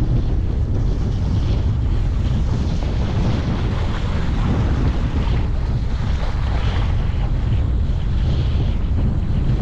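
Wind buffeting the microphone in a steady low rumble, with water rushing and splashing against the hull of a windsurf board under sail.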